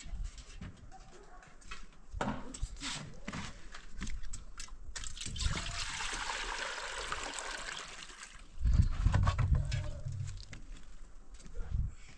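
Water trickling for about three seconds in the middle, among scattered knocks and clatter, with a loud low rumble about nine seconds in.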